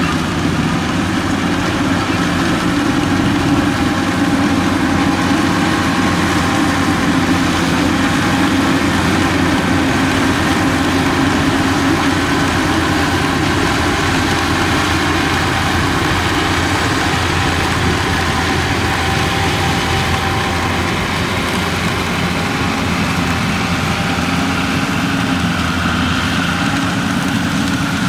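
Yanmar YH850 rice combine harvester running steadily while it cuts and threshes rice, its diesel engine and threshing machinery making a loud, even mechanical drone.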